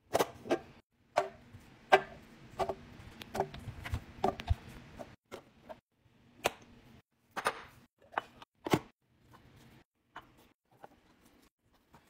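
Sharp plastic clicks and taps from a clear airtight food canister with a push-button pop-up lid as it is opened, filled with cucumber slices and pressed shut, with a few soft thuds about four seconds in and fainter taps near the end.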